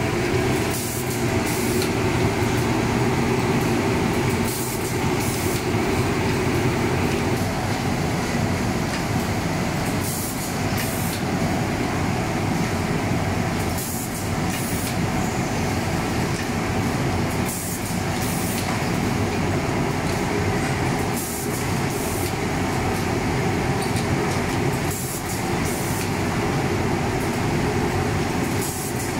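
Socksteam-MIDI sock boarding machine running steadily, with a short hiss every three to four seconds as it cycles.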